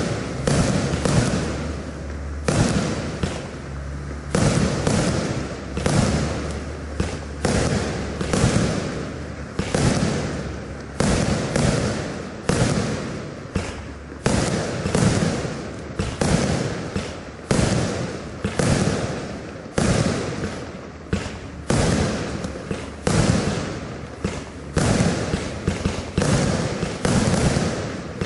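Blackboxx Pyro Spektakel Level 2 compound firework cake firing its 20 mm and 25 mm shots in steady succession, a little more than one a second: each a sharp report of launch and burst that dies away before the next.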